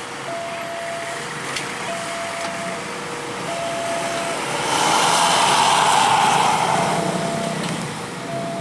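A large road vehicle, most likely one of the buses, passes close by: a rush that swells about halfway in, peaks, and fades a couple of seconds later. Under it a bus horn plays a steady two-note telolet pattern, alternating a high and a low note every second or so.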